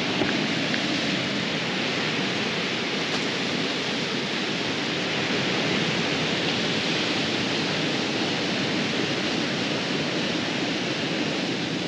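Ocean surf on a beach and rocks, a steady, even rush.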